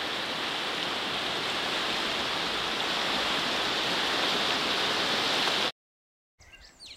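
A river in flood rushing over rapids, a steady roar of water that cuts off about five and a half seconds in. After a brief silence, faint bird chirps begin.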